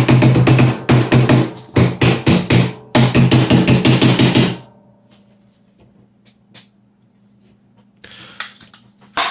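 Background music with a fast, steady beat for about four and a half seconds, then it drops away to a quiet stretch with a few faint clicks.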